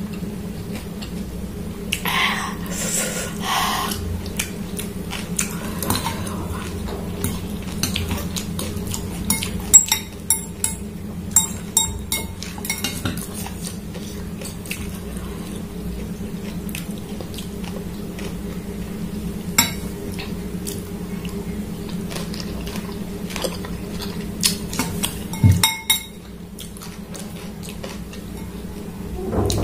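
Metal fork and spoon clinking and scraping against a glass bowl of ramen noodles, in irregular small clinks with a few sharper ones about ten seconds in and again near the end. A steady low hum runs underneath.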